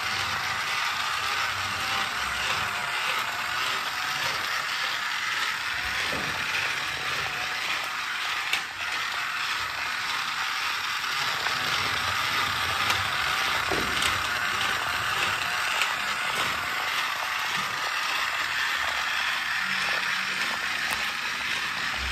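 Battery-powered shark-shaped toy car driving on its own, its small motor and plastic gears whirring with a steady clicking rattle.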